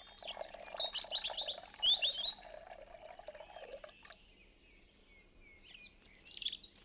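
Small birds chirping. For about the first four seconds, milk is poured from a jug into a cup beneath the chirps.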